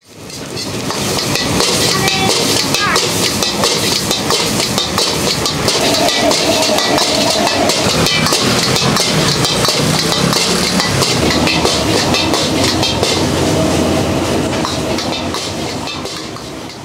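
Stir-frying in a wok: a metal ladle clattering and scraping against the wok in quick strikes over the steady roar of a gas burner. The sound fades in at the start and fades out near the end.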